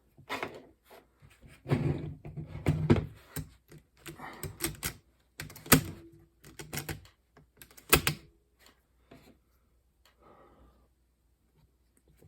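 Clicks, scrapes and knocks of small metal and plastic parts being handled while an external floppy drive mechanism is worked apart, with two sharp loud knocks about six and eight seconds in, then quieter rustling.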